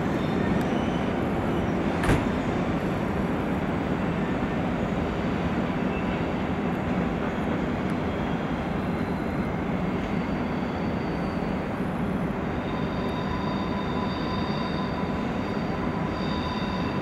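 Re 460 electric locomotive and IC 2000 double-deck coaches running away over the station's switches, a steady rolling noise with one sharp click about two seconds in. From about ten seconds on, faint high wheel squeal sets in.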